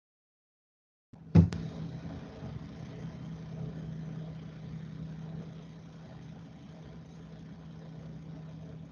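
A sharp click about a second and a half in, then a steady low machine hum that slowly fades.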